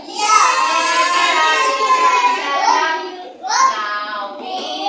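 A group of young children singing loudly together: one long held note, then voices sliding upward twice around the middle.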